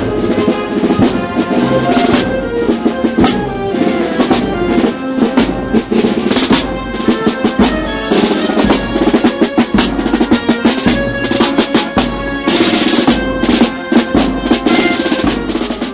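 Band music driven by drums: snare drum rolls and bass drum beats under held instrument notes.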